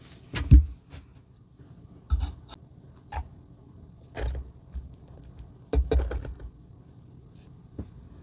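A string of short knocks, taps and rustles from handling a plastic Argo cornstarch jar, pouring the cornstarch into a clear plastic bowl and pressing a bar of soap down into the powder. The loudest knock comes about half a second in.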